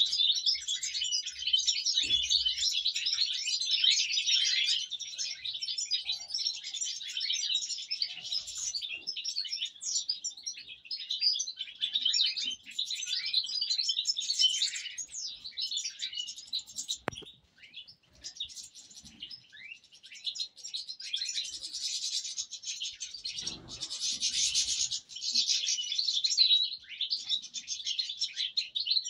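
A flock of European goldfinches chirping and twittering together in a dense, high chatter. It thins out for a few seconds past the middle, then swells again.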